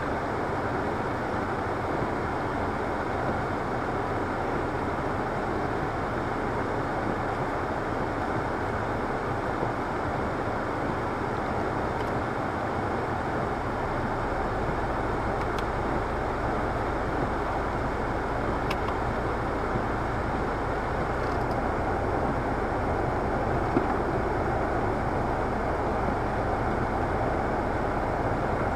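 Steady rushing noise heard inside a stationary car in the rain, with a low hum joining about halfway through and a car rolling past on wet tarmac near the end.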